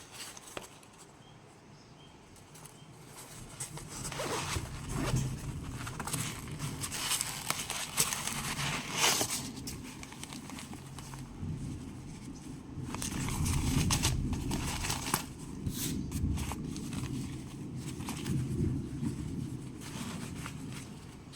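Handling noises of a soft fabric multimeter carrying case: irregular rustling, scraping and light clicks, starting about four seconds in.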